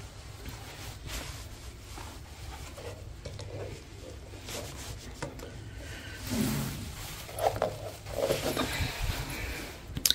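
Faint rustling and shuffling as feet are slipped into leather high-heeled pumps on a shag rug, with a short low murmur of a woman's voice about six seconds in.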